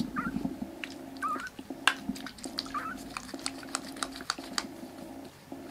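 Young black kitten giving three short, high-pitched mews, with scattered sharp ticks in between.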